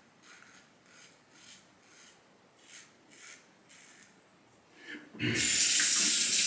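Safety razor scraping through two-day stubble in short strokes, about two a second, during a first pass with the grain. About five seconds in, a tap starts running hard into the sink.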